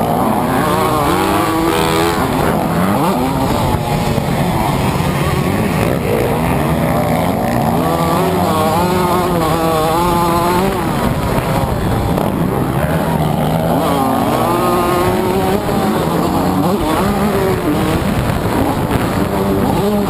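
TM MX 125 two-stroke motocross bike's engine revving hard, its pitch climbing and dropping again and again with the throttle and gear changes as it is ridden around a dirt track, heard close up from on board.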